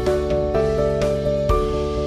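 Soft instrumental background music: gentle plucked and keyboard-like notes changing about every half second.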